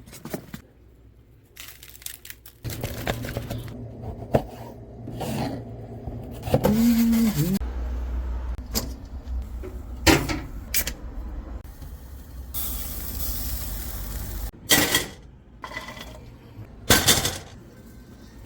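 Kitchen handling sounds: dishes and utensils knocking and clattering at irregular intervals, over a low steady hum that runs for several seconds and stops about three-quarters of the way through.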